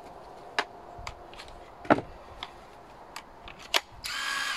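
Makita DTW190Z 18 V cordless impact wrench handled, with a series of plastic clicks and knocks. Near the end its motor is run briefly with the trigger, spinning free with a steady whine.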